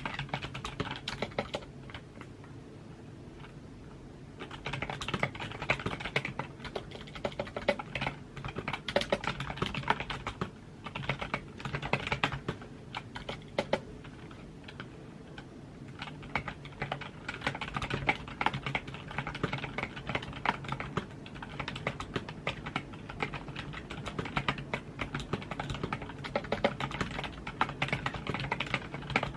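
Typing on a computer keyboard: fast, uneven runs of key clicks with brief pauses, and a lighter patch a few seconds in. A faint steady low hum sits underneath.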